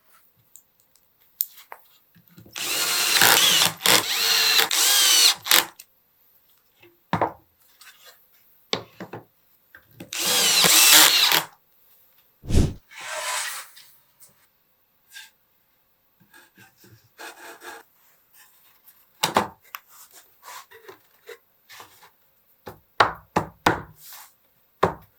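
Power drill running in two bursts of about three and two seconds, with scattered short knocks and clicks between them.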